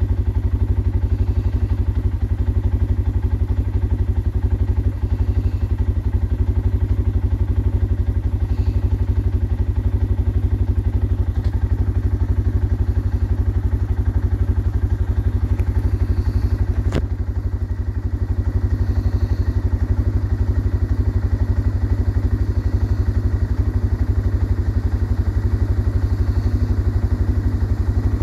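ATV engine running at a steady, even idle-like rumble with a light clatter, unchanging throughout. A single sharp click about seventeen seconds in.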